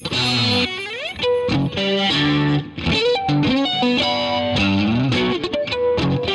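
Ibanez electric guitar playing a fast melodic riff of quickly changing notes, with a slide up in pitch about a second in.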